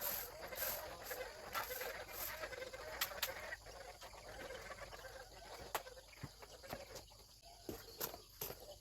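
Farm poultry calling softly, with scattered sharp clicks; the calling is busiest in the first few seconds and thins out after that.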